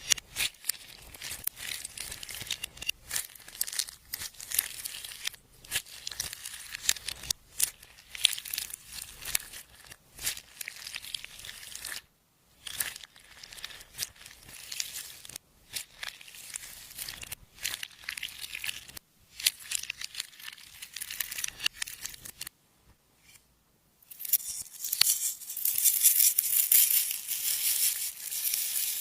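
Clear slime being squished and stretched by hand, giving sticky crackling and popping clicks. After a short pause about two-thirds of the way through, the crackling comes back denser and louder.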